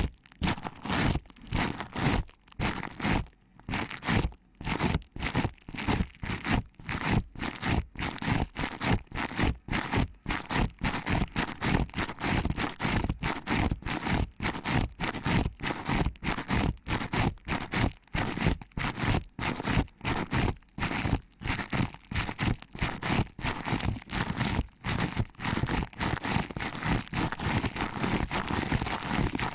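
Fingers rhythmically pinching and rubbing a binaural microphone's ear close-up, making a quick, steady run of short rubbing strokes with crunchy scraping.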